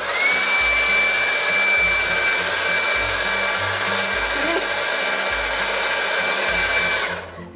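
Panasonic EH-NE82-KL 2,500-watt hair dryer switched on and blowing at full power: a steady rush of air with a high motor whine that rises slightly as it comes up to speed, then cut off about seven seconds in.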